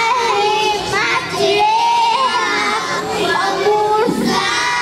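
Young children singing a song, with held notes that step up and down in pitch.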